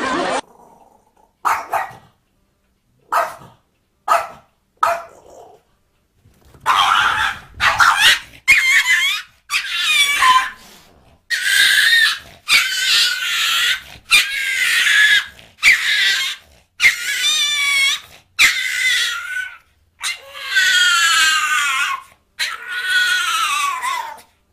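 A dog yelping and whining: a few short sharp yelps at first, then a long string of high-pitched calls, each about a second long and many falling in pitch.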